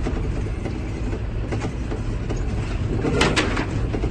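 John Deere tractor engine running steadily, heard from inside the cab, with water rushing and splashing as the tractor pushes a bow wave through deep floodwater. Two short sharp knocks sound a little over three seconds in.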